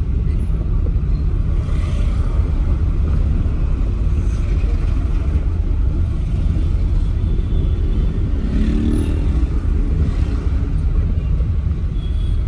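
Steady low engine and road rumble heard from inside a moving vehicle in slow town traffic.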